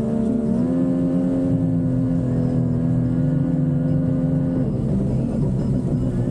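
Mercury 50 HP outboard running at steady low cruising revs, its pitch stepping up slightly about half a second in and the even tone breaking up into a rougher sound near the end. It is running rich from a stuck carburettor fuel bowl.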